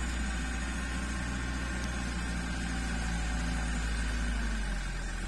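Diesel engine of a light truck overloaded with sugarcane, running steadily and low-pitched under load as the truck crawls over a rutted dirt track.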